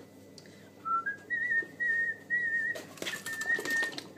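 A person whistling a short tune, a few held, wavering notes that step up in pitch and then ease back down. Kitchen clatter and rushing noise join in about three seconds in.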